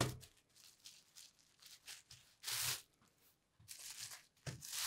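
Wet wool felt rubbed and pressed by hand against bubble wrap, a few short soft crinkling swishes, the loudest about two and a half seconds in. The felt is being fulled: agitated so the fibres shrink and tighten.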